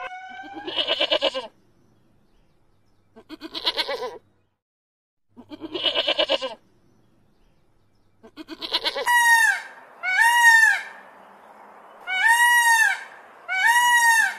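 Goats bleating: three long, wavering bleats, then a run of five shorter calls that each rise and fall in pitch.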